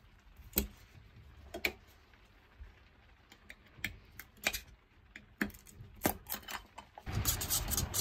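Sharp metallic clicks and taps as the lid of a tin of Hammerite metal paint is levered off. From about seven seconds in, a steady scraping as the paint is stirred in the tin.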